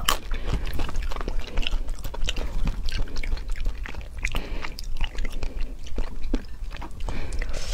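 A person chewing pieces of lemon: a run of irregular small wet mouth clicks.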